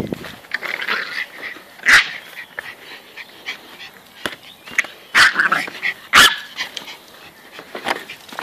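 Pomeranian barking and yipping in short, sharp bursts, loudest about two seconds in and twice more around five and six seconds in, with smaller yips between.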